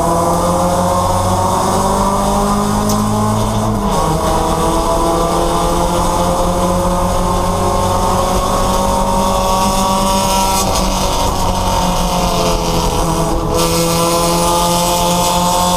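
Porsche 944 race car's four-cylinder engine heard from inside the cockpit, pulling hard with its pitch climbing steadily. There is a quick drop in revs about four seconds in, as on an upshift. The revs sag again around ten to twelve seconds in before climbing once more.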